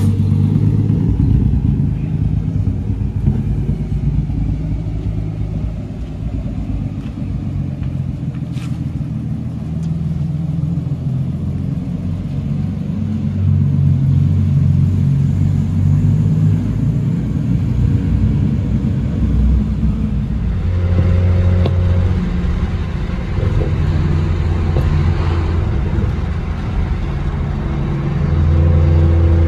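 Full-bolt-on Nissan Skyline R33's engine and exhaust running, its pitch and loudness rising and falling several times.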